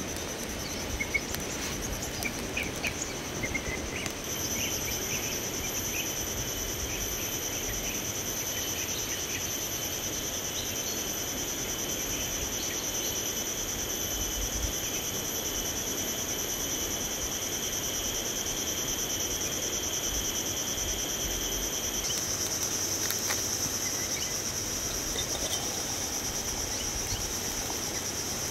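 A chorus of insects trilling steadily at a high pitch, the shrill sound swelling in about four seconds in and shifting slightly near the end.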